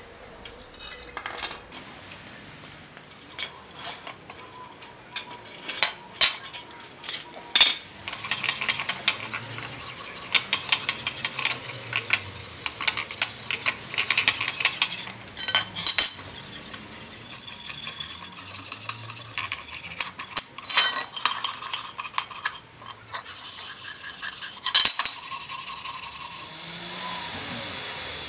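Hand wire brush scrubbing the rusty steel blade of an antique meat cleaver lying on a concrete slab, in fast back-and-forth scratching strokes. A few separate clinks and scrapes come first, as the cleaver is set down, and the steady brushing starts about eight seconds in.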